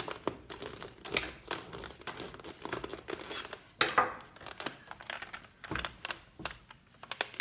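Hands reassembling a 1980s Teddy Ruxpin knockoff toy bear: irregular rustling and small clicks of its parts being fitted together, with one louder knock about four seconds in.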